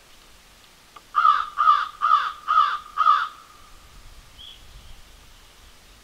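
Five harsh, loud calls in quick succession from a bird of the crow family, each call sliding down in pitch, starting about a second in.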